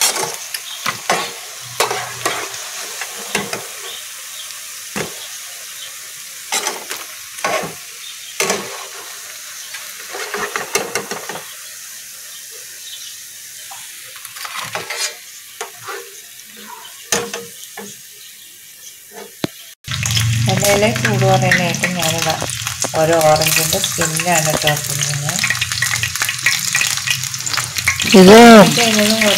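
Fritters deep-frying in a nonstick pan, the oil sizzling, with sharp clicks and scrapes of a slotted spatula against the pan. After a sudden cut about two-thirds through, the frying is louder and a wavering pitched sound runs over it.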